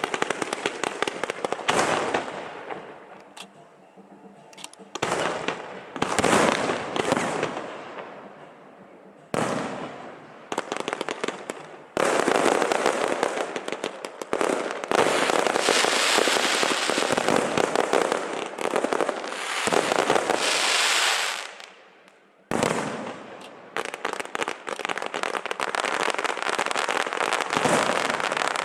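Fireworks and firecrackers going off in long, rapid strings of crackling bangs, easing off briefly twice and cutting out for a moment near the end before starting again.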